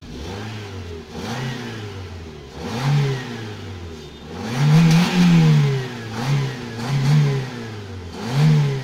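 Chevrolet Beat hatchback's exhaust at the tailpipe just after a cold morning start: the engine idles between about six quick throttle blips that rise and fall in pitch, the longest and loudest in the middle.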